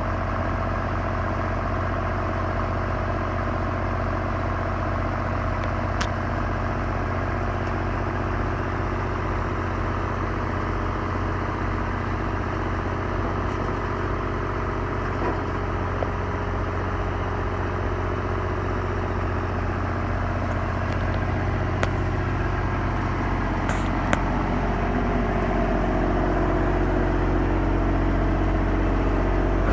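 Ditch Witch FX30 vacuum excavator's engine running steadily, with a few light clicks. It grows slightly louder over the last ten seconds.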